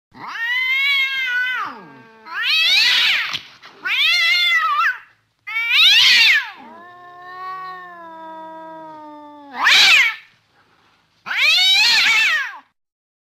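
Domestic cat meowing over and over: seven loud meows in a row, each rising and then falling in pitch, with a longer, lower and quieter drawn-out call in the middle.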